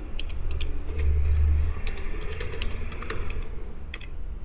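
Computer keyboard keys clicking in an uneven run of keystrokes as a sentence is typed, over a low hum.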